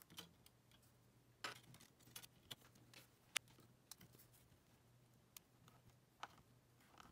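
Faint, scattered light clicks and taps of fingers handling the small metal-and-glass parts of an opened iPod Touch on a work mat, the sharpest about three and a half seconds in, over a faint steady low hum.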